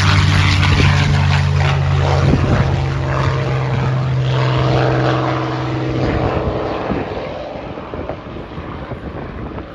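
Propeller aircraft engine droning steadily as a plane flies past, then fading away after about six seconds.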